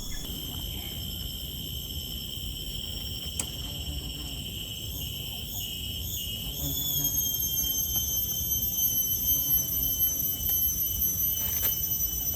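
Insects droning in one steady, high-pitched tone that wavers a few times about five to seven seconds in, then holds steady.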